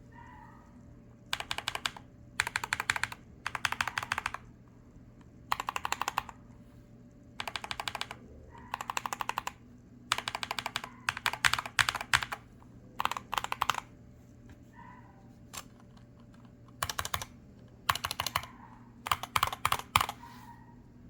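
Typing on a Corsair K70 MAX magnetic-switch keyboard fitted with swapped switches: short bursts of fast keystrokes separated by brief pauses.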